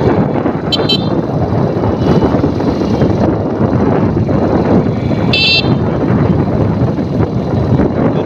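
Steady engine and traffic rumble with two short, high-pitched horn toots, one about a second in and another about five seconds later.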